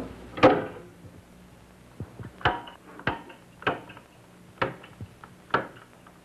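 The metal door of an electrical circuit-breaker panel swinging open with a clatter, followed by five sharp metallic snaps a little under a second apart, as of the breakers being switched one after another.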